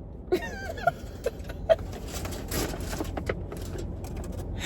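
A short high, wavering vocal sound in the first second, then scattered clicks and rustling over a steady low rumble.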